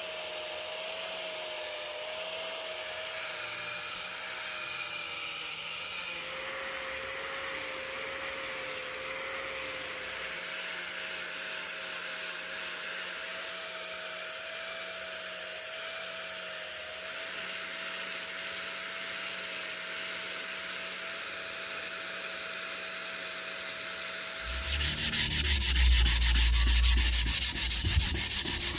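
An electric angle grinder with a sanding pad runs against a rosewood axe handle, a steady motor whine over the rasp of the abrasive, dipping in pitch for a few seconds. Near the end the motor stops and louder, fast hand sanding of the wood takes over.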